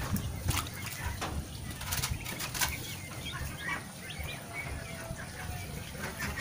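Outdoor ambience of birds chirping, with scattered sharp clicks and a low rumble of wind or handling noise on the microphone.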